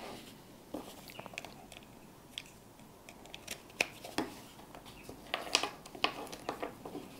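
Irregular light clicks and knocks from a small plastic headlamp and its USB charging cable being handled on a desk, with a few sharper clicks partway through.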